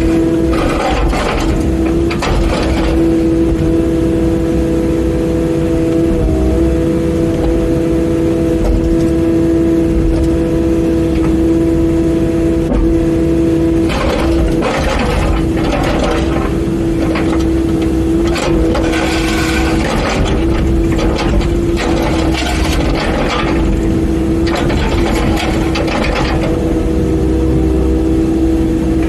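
Mini excavator's engine running steadily with a constant whine, broken by bursts of knocks and clatter, mostly in the second half, as the bucket and thumb handle concrete blocks.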